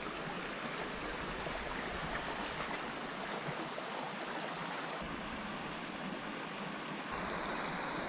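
Steady rushing of a stream, an even hiss of flowing water whose tone shifts abruptly twice, about five and seven seconds in.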